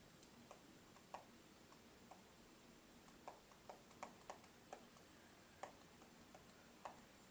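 Faint, irregularly spaced light ticks of a stylus pen tip tapping on a tablet's glass touchscreen, over near-silent room hiss.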